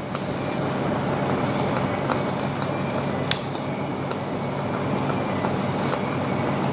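Steady machine-like rushing noise, with a few faint clicks and one sharper click a little over three seconds in.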